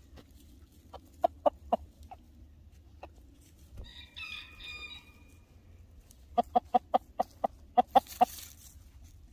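Ameraucana rooster clucking: three short clucks about a second in, then a fast run of about nine clucks in the last third. A fainter, higher, drawn-out call comes about four seconds in.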